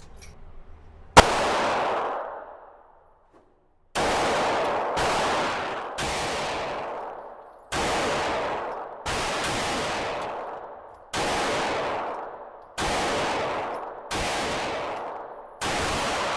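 Glock 43X 9mm pistol fired in slow, aimed single shots, about a dozen, roughly a second apart after a longer gap following the first. Each shot rings on in a long echo typical of an indoor range.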